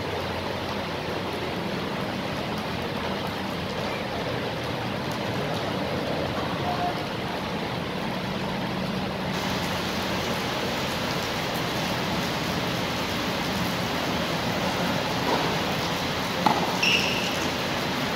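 A steady rushing noise fills the court, with a couple of sharp tennis ball strikes from rackets near the end as a rally gets going.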